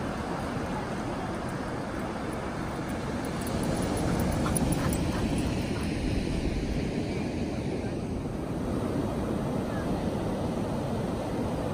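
Ocean surf washing up the beach, a steady rushing that swells a little around the middle. A dog close by makes a few short sounds about four to five seconds in.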